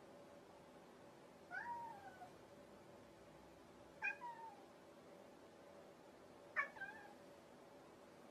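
Domestic cat meowing three times. The calls are short and about two and a half seconds apart, each rising then dropping in pitch.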